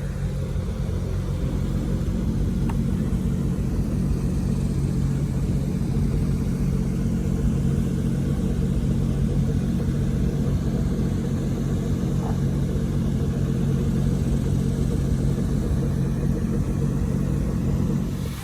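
Boat motor running steadily at low speed, a low, even hum.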